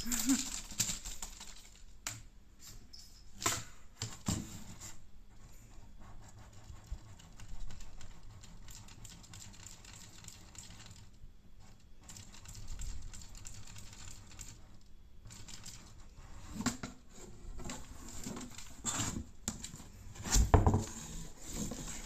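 Scattered crinkling rustles and light taps from a crinkle-paper cat teaser stick and an empty cardboard box, with a louder cluster of knocks near the end.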